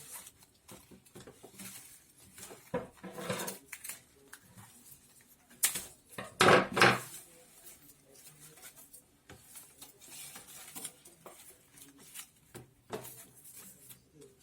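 Palm fronds being handled and worked, with scattered clicks and knocks and short crackly rustles; the loudest rustle comes about six and a half seconds in.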